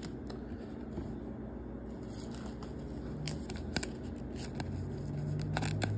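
A trading card being handled and slid into a thin plastic penny sleeve: soft rustling with a few short, sharp plastic crinkles in the second half, over a faint steady low hum.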